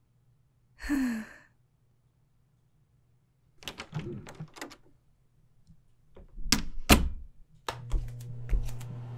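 Cartoon sound effects: a short breathy sound with a falling tone about a second in, a quick run of clicks and knocks around four seconds, two loud thunks a couple of seconds later, then a steady low hum with a few more clicks starting near the end.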